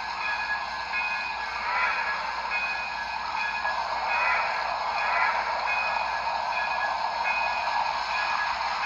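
N-scale model train running along the track: a steady whir with short, evenly spaced clicks about every two-thirds of a second.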